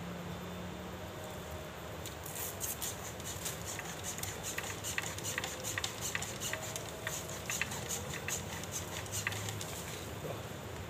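Dry bamboo twigs, leaf sheaths and leaf litter crackling and snapping as hands pull and break them apart inside a bamboo clump. The crackling comes in irregular clicks that start about two seconds in and thin out near the end.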